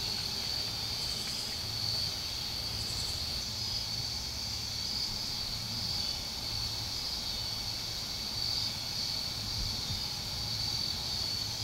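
Steady chorus of insects such as crickets, a continuous high trill with a slight pulsing, over a faint low hum.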